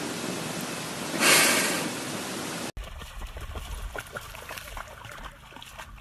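A steady rushing hiss, like running water, swells louder about a second in and cuts off suddenly near the middle. Faint scattered clicks follow.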